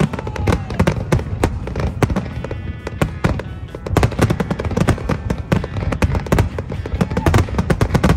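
Fireworks display: aerial shells bursting in many bangs in quick succession, overlapping with crackle.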